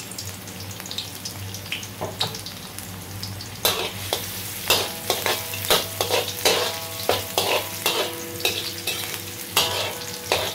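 Garlic and ginger sizzling in hot oil in a wok, with a spatula scraping and knocking against the pan as they are stirred. The scrapes come thick and fast from a few seconds in, some leaving the wok ringing faintly.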